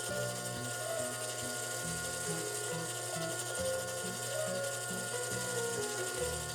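Battery-powered toy microwave running, its turning mechanism making a steady ratcheting, clicking whir.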